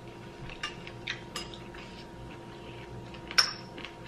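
Metal spoons tapping and scraping in small glass bowls: a few light clicks, then one sharper clink with a short ring about three and a half seconds in, over a steady low room hum.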